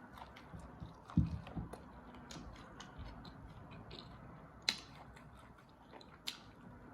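Close-up eating sounds: chewing with scattered small mouth clicks and smacks, a low thump about a second in, and two sharp clicks in the second half.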